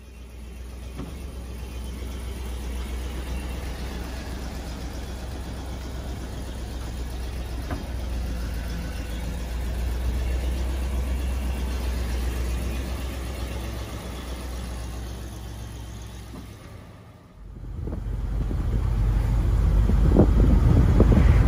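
1963 Cadillac Eldorado Biarritz's 390 V8 running steadily, a low hum with road noise over it. About three-quarters of the way through the sound drops away for a moment, then comes back louder with the car under way and wind and road noise building.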